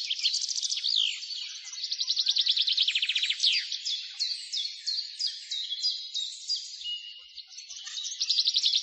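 Several songbirds singing at once, a dense chorus of rapid trills and quick down-slurred whistled notes overlapping without pause.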